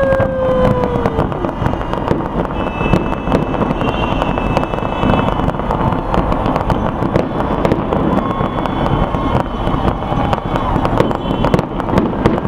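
Aerial fireworks display going off continuously at a distance: a steady rumble of booms with dense, rapid crackling pops throughout.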